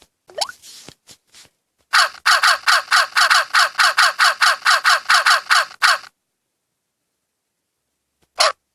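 Phone keyboard's cawing key-press sound effect, heard as one rising swoop and then about twenty identical short calls in quick succession, about five a second, as keys are tapped fast; one more call sounds near the end.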